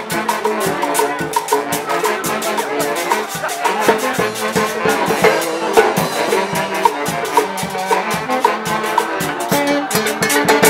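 Live street band of saxophones, clarinets and violins playing a lively festive tune over a steady percussive beat.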